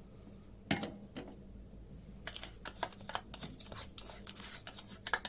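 Light knocks, then a run of quick irregular clicks and taps of a spoon against a bowl as powdered sugar is tipped in.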